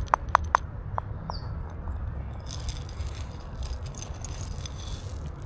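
A small plastic cup tapping a few times on stone paving in the first second, then dry cat food pellets rattling and pattering out of it onto the stone from about halfway in.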